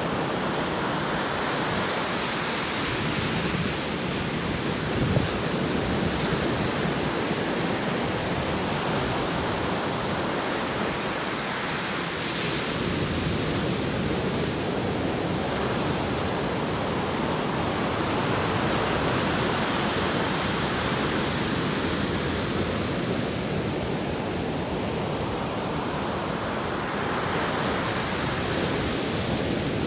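Atlantic Ocean surf: a continuous rush of waves breaking and washing ashore, swelling every several seconds.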